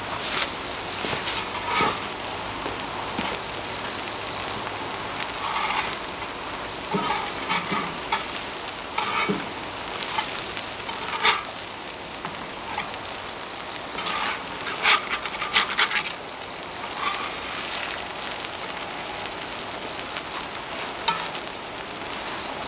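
Grated aged-pumpkin pancakes sizzling in oil on a cast-iron pot-lid griddle, with short strokes of a metal and a wooden spatula scraping and knocking on the griddle every few seconds.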